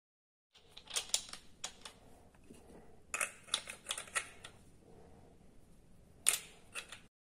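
Sharp clicks and light clatter of an angle grinder being handled while its disc is changed and a flap disc is fitted to the spindle: a few clicks near the start, a quick run of them in the middle, and one loud click near the end.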